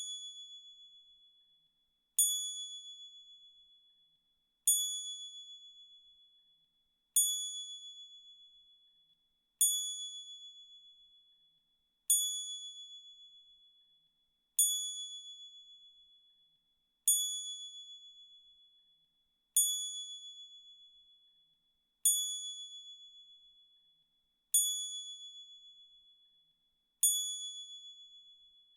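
A high, clear bell-like ding struck about every two and a half seconds, roughly eleven times. Each strike starts sharply and rings out, fading away over about two seconds before the next.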